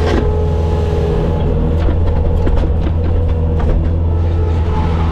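Bobcat skid steer's diesel engine running steadily at high revs, with a steady whine over it and a handful of knocks and rattles between about two and four seconds in.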